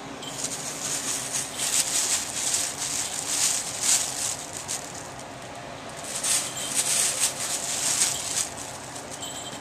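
Plastic bag crinkling as a kitten rolls and paws against it, in two bouts of dense rustling with a quieter pause between.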